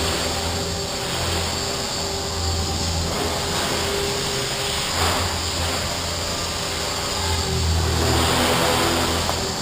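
Electric Align T-REX 500 radio-controlled helicopter in flight: the buzz of its main rotor and the whine of its motor, steady with a slight swell near the end.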